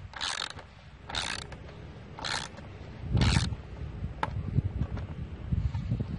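Socket ratchet clicking in short bursts, about one a second, as it is swung back and forth to tighten a bolt on the air filter housing cover. After four bursts comes a single click about four seconds in.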